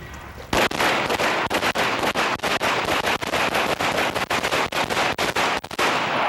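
Several handguns firing together in a rapid, overlapping string of shots that echo off the walls of an indoor range. The firing starts about half a second in and stops a little before the end.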